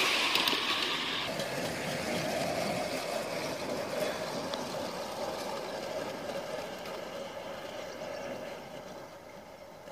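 Gauge 3 model train running on the garden track. The hiss of wheels on the rails drops away about a second in, leaving a steady hum that fades slowly as the train moves away.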